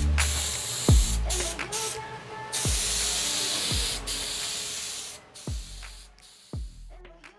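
Hissing spray in long bursts with short breaks between them, fading out near the end. Background music with deep bass drops plays underneath.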